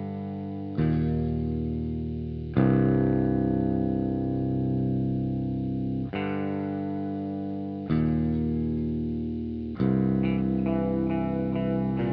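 Jazzmaster electric guitar with Alnico 2 pickups playing a slow chord progression: each chord is struck and left to ring for a couple of seconds before the next. Near the end it moves into a quicker run of picked notes.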